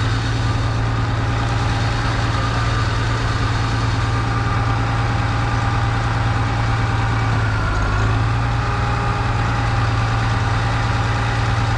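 Farmall 560's gasoline six-cylinder engine running steadily, freshly fitted with an electronic-ignition distributor and coil; it is running a lot better, though the timing may still need some adjusting.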